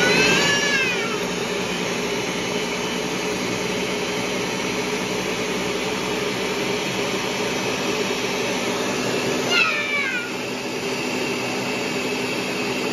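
Ninja countertop blender running on its Blend setting, its blades churning frozen strawberries, banana and mango into a smoothie with a steady motor drone. Brief falling squeal-like tones come right at the start and again about ten seconds in, where the motor note briefly changes.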